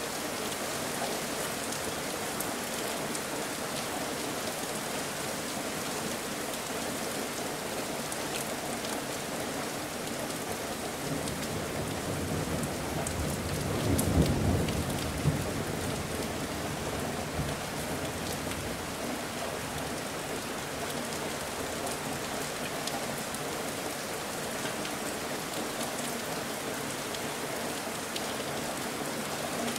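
Steady rain falling, with a roll of thunder that rumbles up and fades away around the middle.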